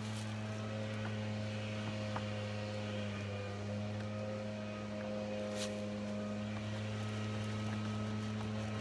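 An engine idling with a steady, even hum, and a few light clicks as a spout is handled and fitted onto a plastic gas can.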